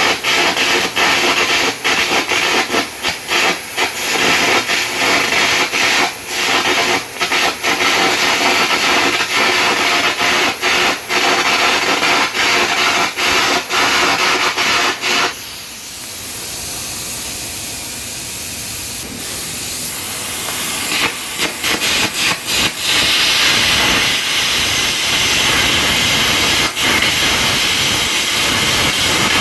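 Arc gouging: a loud, steady hiss of the arc and air jet, thick with rapid crackling as molten metal is blown out of the cut. About halfway through the crackling gives way to a smoother hiss for a few seconds, then the crackling returns.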